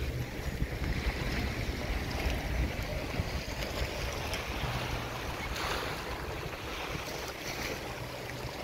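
Wind rumbling on the microphone over the wash of sea waves.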